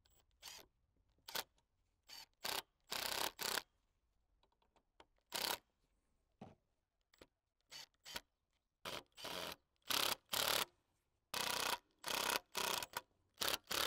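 Cordless impact driver driving screws into a wooden door frame in a string of short bursts, some a fraction of a second and some about half a second long, with brief pauses between them.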